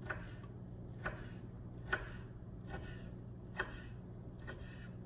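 Kitchen knife cutting raw lionfish fillet into small pieces on a wooden cutting board, the blade tapping the board about once a second. A faint steady low hum runs underneath.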